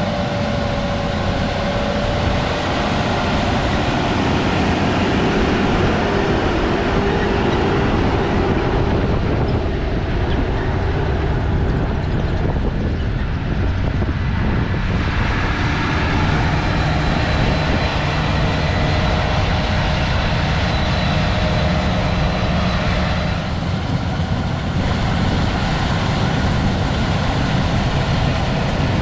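Heavy harvest machinery running steadily under load: a constant loud diesel rumble with machine noise on top.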